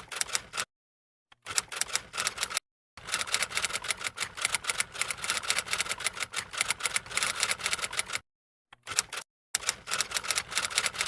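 Rapid typewriter-like key clicking in several runs, each stopping and starting abruptly with complete silence between them.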